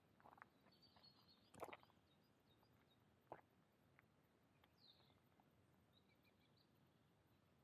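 Near silence in woodland, with faint birds chirping now and then and a few soft footsteps on the forest path in the first half.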